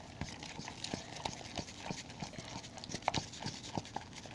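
Hands squeezing and stretching sticky homemade glue slime activated with Tide detergent, making a string of irregular quick wet clicks and pops.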